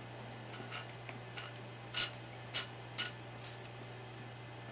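A small plastic squeeze bottle of gun oil being handled and squeezed over a pistol barrel, giving about seven short, sharp ticks and spurts over three seconds. A steady low hum lies underneath.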